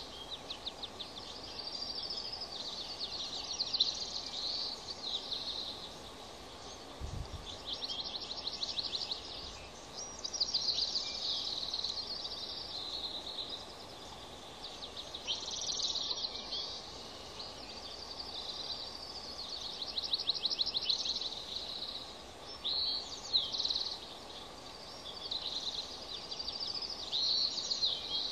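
Birds calling outdoors: phrases of fast, high trilled notes that repeat every few seconds over a steady background hiss, with one brief low thump about seven seconds in.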